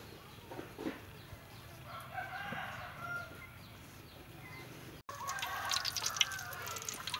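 Chickens clucking and calling in the background. About five seconds in, hot oil starts sizzling and crackling around a potato-coated egg ball deep-frying in a wok.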